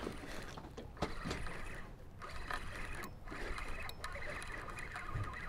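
Water washing against the hull of a small boat at sea, with a few light clicks and knocks.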